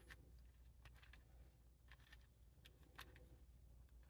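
Faint, scattered clicks of a 4x4 Rubik's Cube's layers being turned, over a low steady hum.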